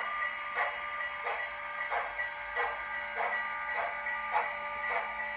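Sound decoder in an HO scale model of CN 6060 steam locomotive playing slow, even steam chuffs, about one and a half a second, over a steady whine, through the model's small speaker.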